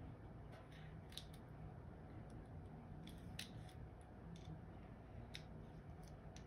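Faint, scattered clicks and light scrapes of a hi-capa 5.4 airsoft gas blowback pistol's parts being handled and fitted together: slide, recoil spring and guide rod. The clicks come singly, at uneven intervals, about nine in all.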